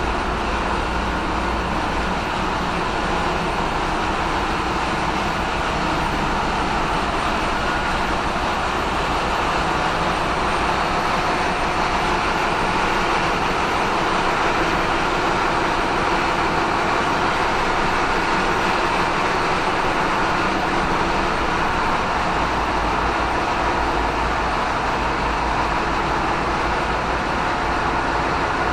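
Steady, loud machinery noise of a bulk carrier's engine room: a dense, even drone with a low hum underneath that does not change.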